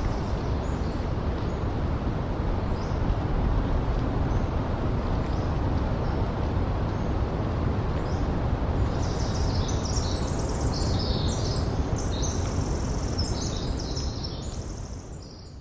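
Steady rushing rumble of a breeze through coastal forest with distant ocean surf underneath. Past the middle, a run of small birds' high, thin chirps joins in. Near the end the sound fades down.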